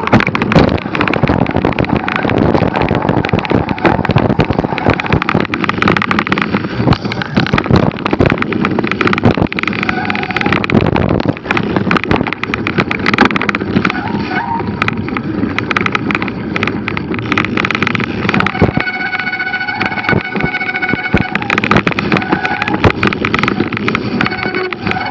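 Hardtail mountain bike ridden fast over a rough trail: a dense, continuous clatter of knocks and rattles with wind rushing on the microphone. A steady whine comes in over the rattle near the end.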